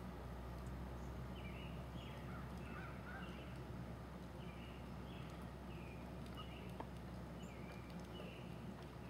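Wild turkeys calling faintly: a run of short notes, each falling in pitch, repeated about one or two a second over a low steady rumble.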